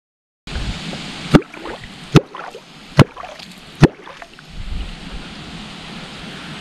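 Catfish clonk struck on the water four times, just under a second apart, each strike sharp and loud, followed by steady water noise.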